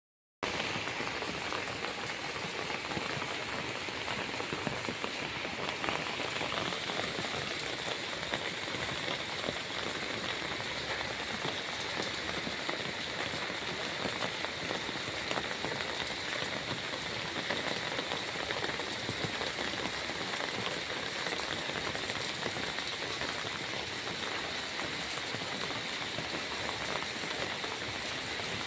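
Steady, dense hiss of water with fine patter, unbroken throughout.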